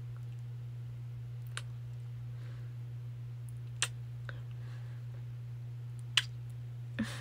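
A few short, sharp clicks at irregular intervals, with a close pair near the end, over a steady low hum.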